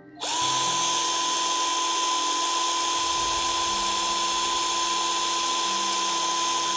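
Agromate 18 V two-speed cordless drill motor starting about a quarter second in and then running at a steady, even whine.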